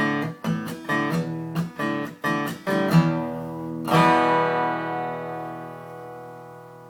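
Acoustic guitar strumming an ending: quick strummed chords, then a final chord about four seconds in that rings out and slowly fades.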